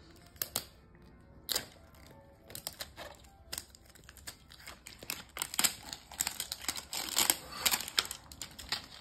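Plastic wrapping strip being peeled and unwound from an L.O.L. Surprise toy ball, crinkling and tearing. The crackles are scattered at first and come thick and loud over the last few seconds.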